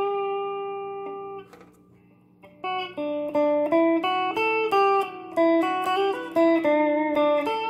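Electric guitar played through a Valeton Dapper Amp Mini pedal into a Fender Champion 20 amp: a held note rings and fades out. After a short pause, a melody of single picked notes follows at about three a second.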